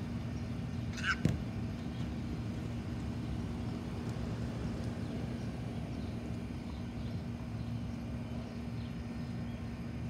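A steady low mechanical hum, with one short high chirp and a single soft thud about a second in.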